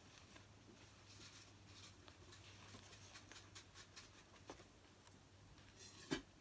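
Near silence with faint rustling and small clicks of fabric and pins being handled, over a faint steady low hum. A single louder tap comes near the end.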